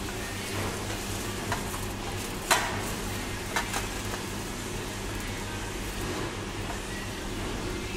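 A few short clicks and crinkles as a foil-wrapped burrito, cut in half, is handled on a metal tray, over a steady hum of kitchen equipment.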